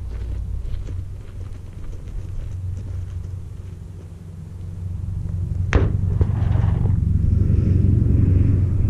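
A single sharp crack of a gunshot a little past halfway, over a steady low rumble that grows louder after it.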